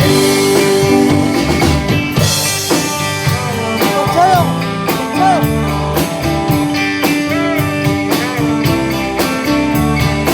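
Instrumental passage of a country-rock song with no vocals: guitar lines with bent notes over a steady drum beat.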